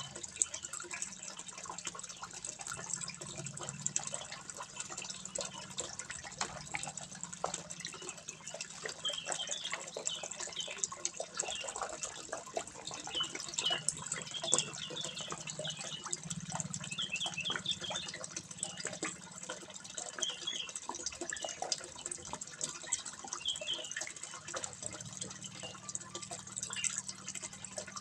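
Water trickling and splashing steadily into a fish pond, a continuous run of small drips and splashes.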